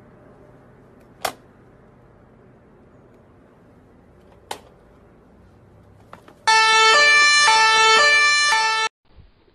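Loud two-tone siren switching back and forth between two pitches for about two and a half seconds, cutting off abruptly. Before it comes a low steady background hum with two sharp clicks.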